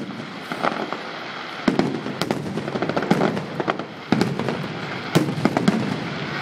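Fireworks salute bursting: a string of irregular sharp bangs, some in quick clusters, over a steady crackling hiss.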